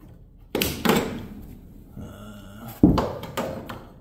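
A series of knocks and clanks, the loudest near three seconds in, with a brief faint squeak just before it.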